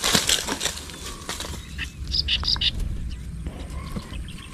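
A short noisy rush at the start, then about two seconds in a bird giving a few quick, high chirps.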